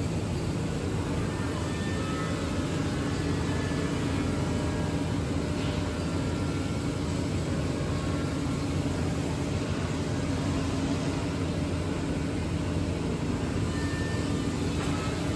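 Steady machine noise of a CNC woodworking machine running: a constant low drone with an even hiss over it, unchanging throughout.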